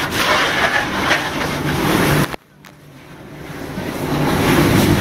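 Steady rushing noise of a burning car being knocked down with a fire hose: water spray and flames together. The sound cuts out abruptly a little over two seconds in, then swells back up over the next two seconds.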